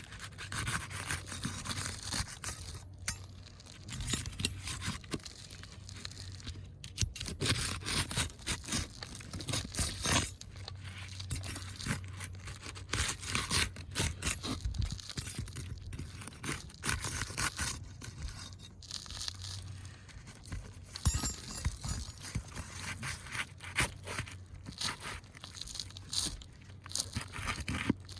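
Asphalt roof shingles being pried and loosened from the roof deck, breaking their seal: irregular bursts of scraping and tearing that come and go throughout.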